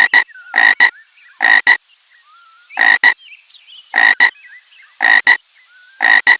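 Frog croaking over and over, about once a second, each croak a longer pulse followed at once by a short one.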